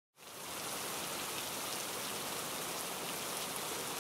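Rain falling steadily, an even hiss with scattered drop taps, fading in just after the start.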